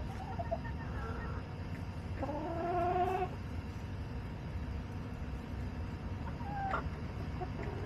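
A hen gives one drawn-out call lasting about a second, rising slightly in pitch, and a shorter call near the end, over a steady low background hum.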